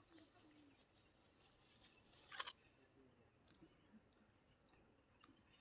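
Near silence: faint outdoor background, broken by two brief clicks about two and a half and three and a half seconds in.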